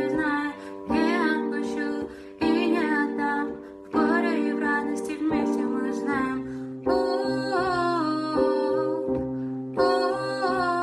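A song: a voice singing phrases over a strummed plucked-string accompaniment such as a ukulele or guitar.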